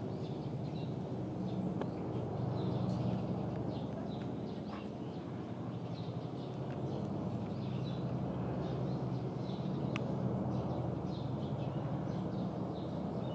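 Outdoor ambience: a steady low hum, with small birds chirping briefly now and then.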